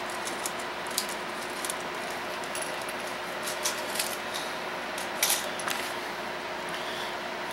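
Small metal hardware being handled: scattered light clicks and clinks, the loudest a little after five seconds in, over a steady background hum.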